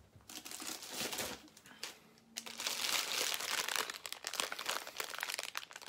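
Plastic bags of sweets, among them a bag of hard candy, crinkling and rustling as they are handled. It comes in two spells with a short lull about two seconds in.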